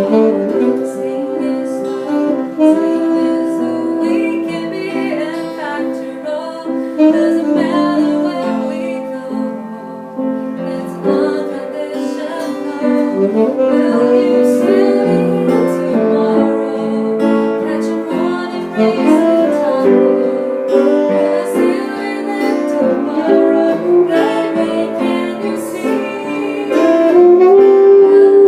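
Small jazz band playing, a saxophone carrying the melody over piano; the band swells louder near the end.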